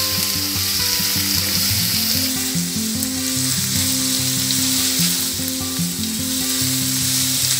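Sliced onions sizzling steadily as they fry in hot mustard oil with whole spices in a nonstick frying pan, stirred with a silicone spatula, on their way to light brown. Soft background music with held notes plays underneath.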